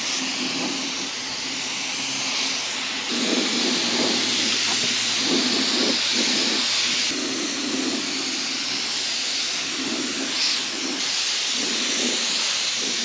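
Compressed-air gravity-feed spray gun hissing steadily as it lays a light first coat of clear over painted steel wheels, the hiss growing stronger from about three seconds in and easing back a few seconds later as the gun is worked.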